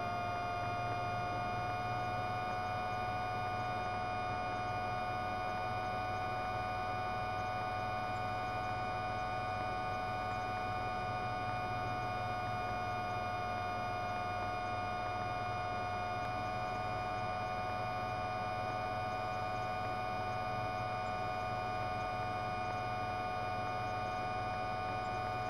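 Steady, unchanging hum made of several constant tones, the loudest a mid-pitched whine, over a low drone. Nothing starts or stops.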